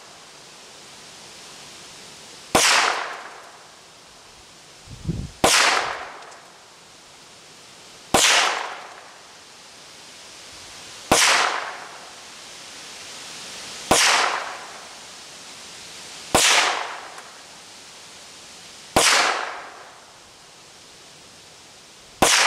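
A Ruger Mark III Hunter .22 LR pistol firing eight single shots at a steady pace, about one every two and a half to three seconds. Each shot is a sharp crack that trails off in an echo over about a second.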